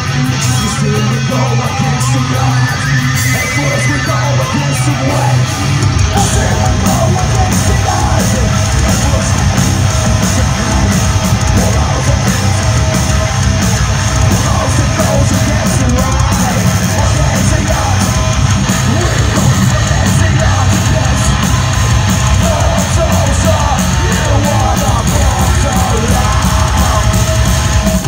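Heavy metal band playing live: distorted electric guitars, bass and drums with shouted vocals, recorded from the crowd. About six seconds in, the drums and bass come in harder with fast kick-drum strokes.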